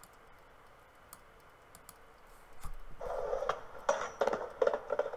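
Skateboard on concrete: quiet at first with faint ticks, then from about three seconds in a run of sharp clacks of the board over the rolling of its wheels.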